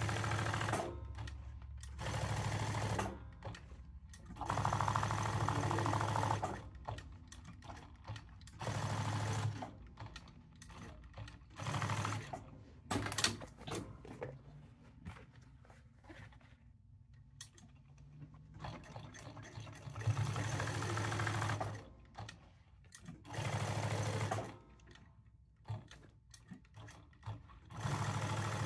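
Jack S5 sewing machine stitching leather patches onto hats in repeated runs of one to two seconds each, starting and stopping as the patch is turned and the hat is changed. Sharp clicks and handling sounds come in the pauses between runs.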